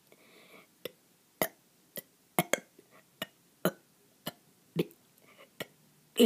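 A person's throat making a run of short, sharp clicks, roughly two a second, in between burps.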